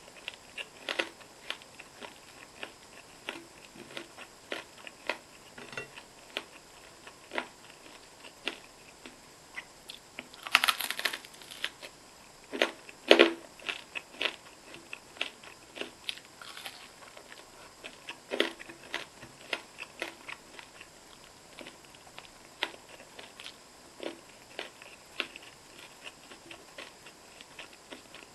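Close-miked eating sounds of a person chewing and eating with their hands: a steady run of short, wet mouth clicks and smacks at irregular intervals. A denser, louder flurry comes about eleven seconds in, followed by two loud smacks about two seconds later.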